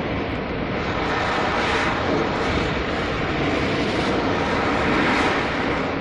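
Ocean surf: waves breaking and washing in as a steady rushing noise that swells several times.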